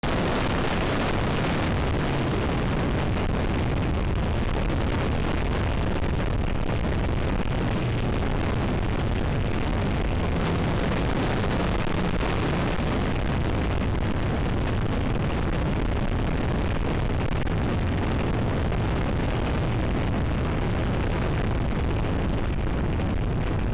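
Steady, loud rush of airflow and propeller noise on a microphone mounted on a radio-controlled T-6 Texan model plane in flight, with no distinct motor pitch standing out.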